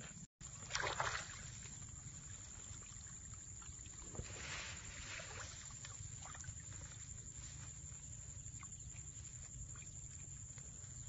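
Steady low outdoor rumble with short rustling, squelching noises about a second in and again around four to five seconds in, as wet mud and a muddy cloth fish trap are handled at the water's edge. The sound cuts out for a moment just after the start.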